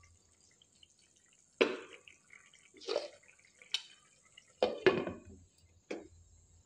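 Steel spoon stirring a thin, wet tomato masala in a non-stick kadai: a few separate wet scrapes and knocks of the spoon in the pan. Near the end a glass lid is set on the pan with one short clink.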